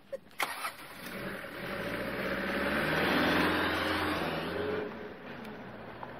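Pickup truck engine rising as the truck pulls away, loudest about three seconds in, then fading as it drives off.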